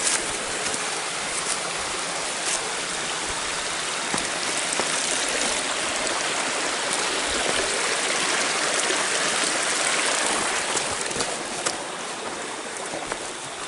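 Shallow forest stream running over rocks, a steady rushing that grows a little louder midway and eases off near the end.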